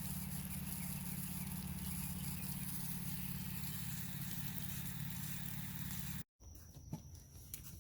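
Steady hiss of water spraying from a garden hose onto a garden bed, over a low rumble. It cuts off suddenly about six seconds in, leaving quiet outdoor background.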